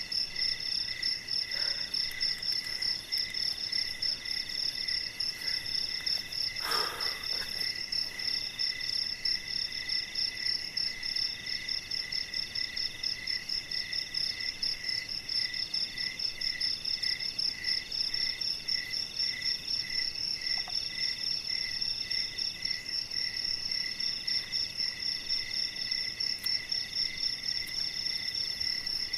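Night insect chorus: several crickets trill steadily at different pitches. The highest trills with fast even pulses, and another repeats in trills of about a second each. A brief lower sound comes about seven seconds in.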